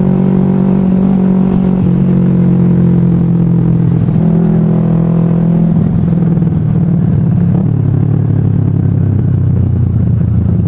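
Kawasaki Ninja 250 carbureted parallel-twin motorcycle engine running steadily while riding along. Its note drops slightly partway through and then holds lower.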